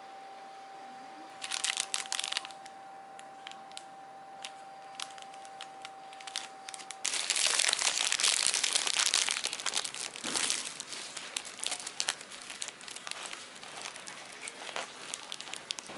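Clear cellophane wrapping crinkling as hands handle a bagged iced cookie: a short flurry of crinkles about a second and a half in, then loud, dense crinkling from about halfway through that thins out into scattered crinkles.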